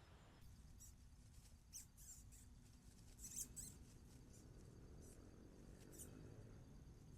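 Near silence with a few faint, short, high-pitched squeaks, clustered about two seconds in, around three and a half seconds in and near six seconds.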